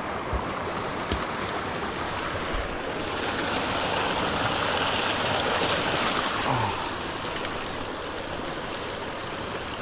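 Running water of a stream rushing steadily, swelling louder for a few seconds in the middle.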